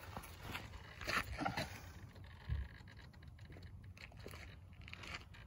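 Faint handling noise with a low rumble underneath, a few short rustles about a second in and a single low thump a little before the middle. The helicopter is not running.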